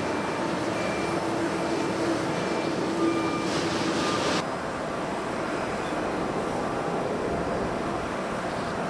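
Jet airliner engines running amid a steady rush of wind noise. About four seconds in, the sound cuts abruptly to a slightly quieter, duller rumble.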